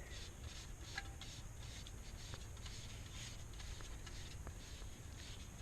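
Faint rubbing and a few light clicks as a Fix-A-Flat can's nozzle is threaded by hand onto a tyre valve stem, over a low steady background hum.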